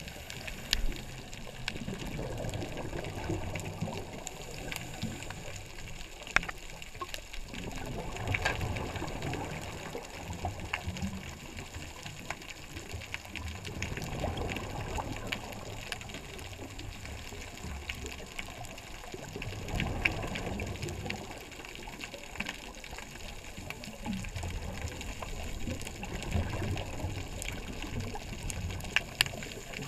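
Scuba divers' exhaled air bubbling out of their regulators, recorded underwater: a rushing gurgle that swells roughly every six seconds, over a steady hiss with scattered sharp clicks.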